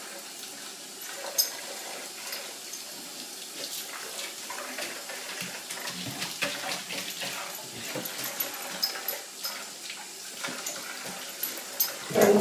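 Great Dane puppy moving about in an empty bathtub, its paws and claws scraping and clicking on the tub with sniffing at the drain, then a short whine near the end.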